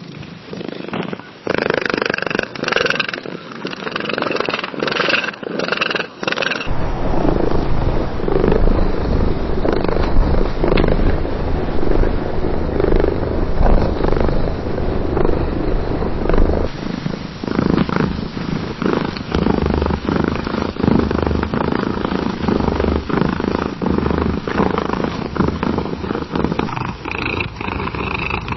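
Cats purring in several separate recordings that follow one another, the character of the purr changing every ten seconds or so as one recording gives way to the next.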